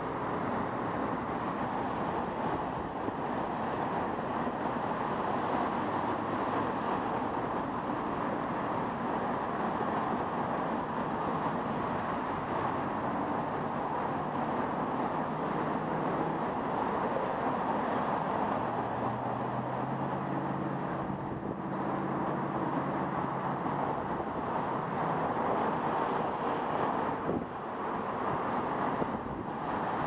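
Steady rush of wind on a bike-mounted camera's microphone mixed with the noise of car traffic passing through the intersection. A low engine hum rises from a passing vehicle about two-thirds of the way through.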